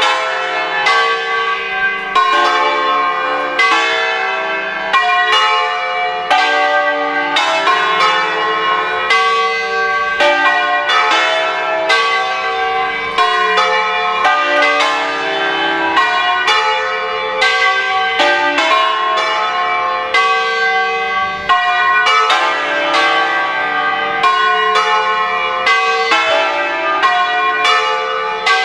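Five Ambrosian-mounted church bells cast by A. Bianchi, a ring in D-sharp (Re#3), swinging full circle together in a distesa, their strokes tumbling over one another in a continuous peal. The full peal is the call to the vigil (pre-festive) Mass.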